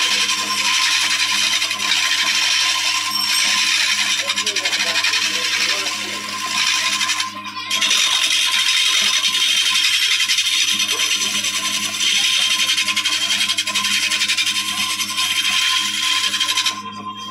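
Powered woodworking machine cutting or abrading wood: a dense scraping hiss over a steady motor hum. It breaks off briefly about seven seconds in and stops shortly before the end.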